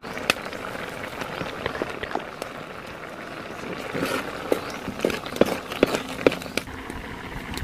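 Heart of palm simmering in coconut cream in a pan over a wood fire: steady bubbling with irregular pops and crackles, busiest in the second half. A wooden spatula stirs through the mixture.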